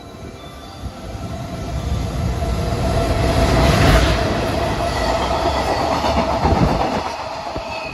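Freight train hauled by an electric locomotive passing through a station at speed. The rush builds to its loudest as the locomotive goes by about four seconds in, with a steady hum over it. The container wagons' wheels then clatter past and fade near the end.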